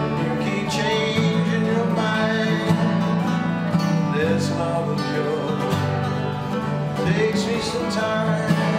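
Acoustic guitars and mandolins strummed together in a country-style acoustic jam, with a man singing over them.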